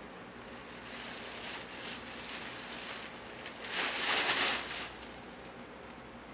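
Fabric play tunnel rustling and crinkling as a puppy scrambles inside it, swelling to its loudest for about a second near the middle before fading.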